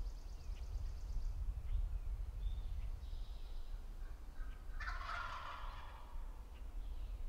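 Wild turkey gobbler gobbling once about five seconds in, a loud rolling rattle of a call. A faint high, fast trill sounds near the start.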